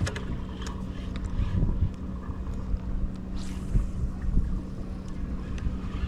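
Wind buffeting the microphone on a small boat, over a steady low hum and a few short clicks and knocks.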